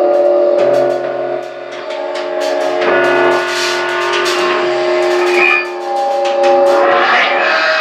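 Live band playing a slow passage of held electric guitar chords that change every couple of seconds, with scattered sharp percussive hits.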